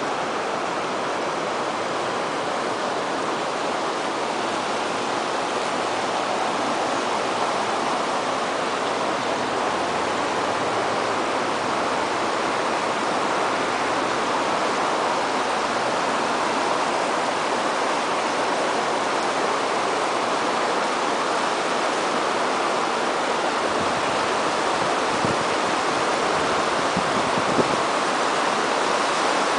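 Shallow river rapids running over boulders and stones: a steady rushing of water.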